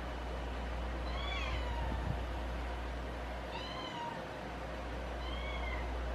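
Domestic cat meowing three times, each an arching call rising and falling in pitch, over a low steady rumble.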